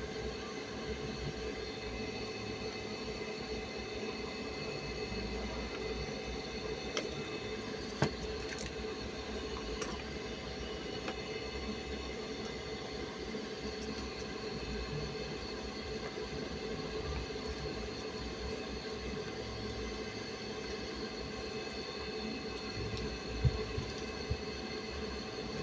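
Washing machine drain pump motor running with a steady electric hum, with a couple of sharp clicks about eight seconds in and near the end.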